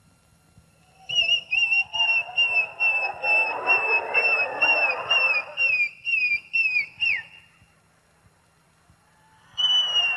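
A whistle tooting in short, wavering pulses, about two or three a second, as the comic sound of a clown's hand pump inflating his partner. The run of toots ends in a downward slide, and after a short quiet a long held whistle note slowly sinks in pitch. Audience noise lies beneath.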